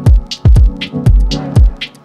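Outro music: an electronic dance track with a kick drum about twice a second, hi-hats between the kicks and a steady synth bass line.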